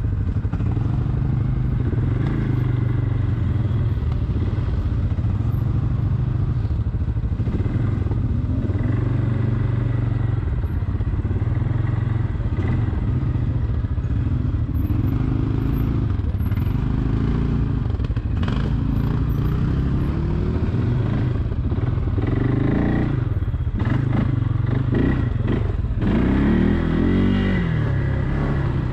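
Quad bike (ATV) engine running steadily on a trail ride, its pitch shifting up and down with the throttle, most clearly near the end, with some clattering.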